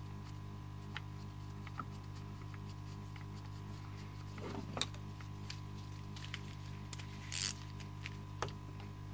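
Light clicks and taps of gloved hands and a small ratchet and socket working the carburettor nuts on a Stihl MS 170 chainsaw, with a sharp click just under five seconds in and a short rasp about seven seconds in, over a steady background hum.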